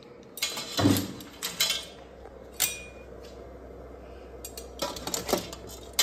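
Slotted spatula clinking against a stainless steel pot as cooked clams and shrimp are scooped out and dropped onto a ceramic plate: a run of sharp clinks and shell clatters, heaviest in the first second and again near the end.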